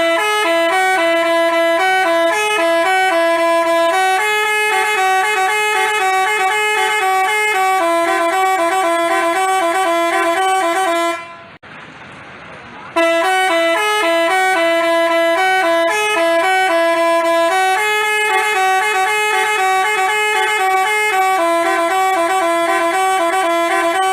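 Telolet basuri bus horn playing a melody in held, stepped horn notes. The tune breaks off about eleven seconds in, and after a pause of about two seconds the same tune plays again.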